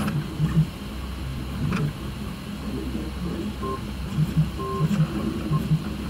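3D printer running: its stepper motors whine in short tones that jump from one pitch to another as the print head moves, over a steady low hum.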